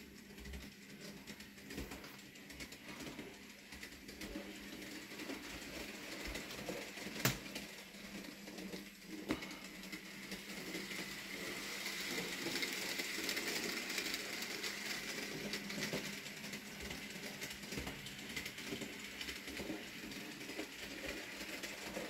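Bachmann model diesel locomotive (Rusty) running along the track with a short goods train: a steady electric motor hum with a rattling whirr of wheels on rail. It gets louder as the train passes close, about half to three-quarters of the way through. There are a couple of sharp clicks of wheels over the track near the middle.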